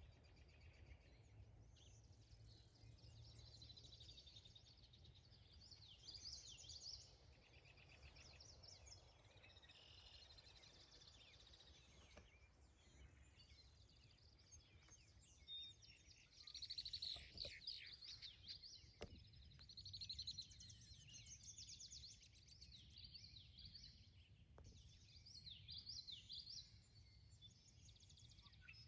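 Several wild birds singing and calling, faint chirps, whistles and quick trills one after another, with more of them in the second half, over a steady low rumble of wind.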